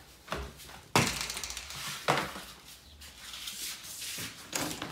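Sharp knocks and clatter, the loudest about a second in and another about a second later, then clicks near the end as a door knob is turned and the door opened.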